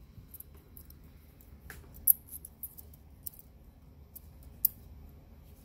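Faint, scattered small clicks and ticks of fingers working a small spring and metal parts onto the shaft of a Model 560 ROV thruster, with two sharper clicks, one about two seconds in and one over four seconds in.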